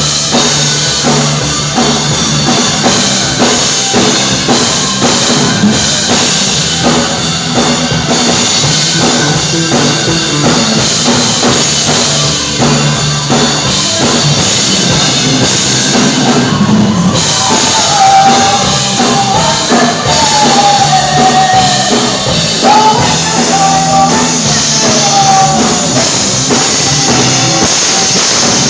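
Live rock band playing, with a drum kit and electric guitars; a high melodic line comes in about eighteen seconds in.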